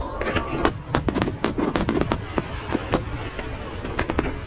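Aerial fireworks going off in quick, irregular succession: a dense run of sharp bangs and crackles, several a second, thinning briefly after about three seconds before picking up again.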